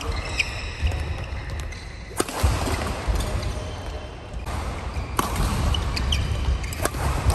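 Badminton rally: a racket striking a shuttlecock three times, sharp cracks a couple of seconds apart, with short squeaks of shoes on the court between them.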